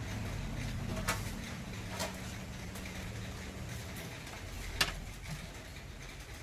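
Metal spatula tapping and scraping on a flat iron griddle while spreading meringue onto small crispy crepes. There are a few sharp taps, about a second in, near two seconds and near five seconds, over a low steady hum.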